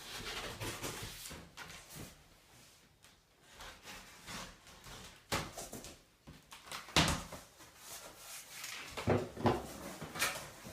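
Cardboard shipping box being cut open and its flaps pulled back: scraping and rustling of cardboard with several sharp knocks, the loudest about seven seconds in.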